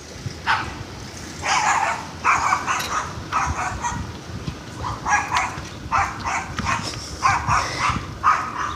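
Dogs barking repeatedly, about one to two barks a second.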